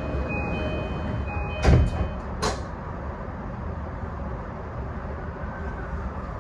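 Door-closing sequence on a JR E235-1000 commuter train: an electronic two-tone chime repeats about once a second, the sliding doors shut with a loud thud about 1.7 s in, and a second sharp knock follows. The car's steady low rumble continues underneath.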